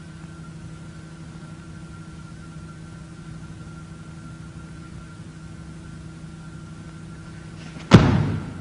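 Steady electrical hum on the soundtrack, then near the end one loud thud with a short decay: a person thrown onto the mat.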